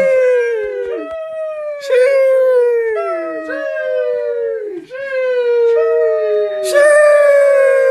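A run of long, drawn-out high howl-like calls, one after another and sometimes overlapping. Each holds a pitch and then slides down at its end, and a few begin with a short hiss.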